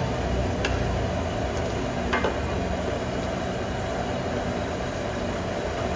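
Sauce boiling hard in an aluminium wok, a steady bubbling hiss over a low rumble. A steel ladle stirring through it clinks against the wok twice, about half a second and about two seconds in.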